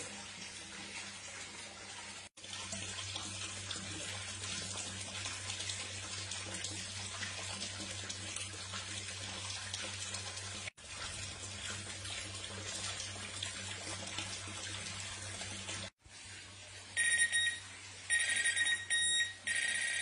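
Steady rushing of running water with a low hum. Near the end, an electronic carp bite alarm sounds loud, high beeps in several short bursts, the signal of line being pulled by a fish.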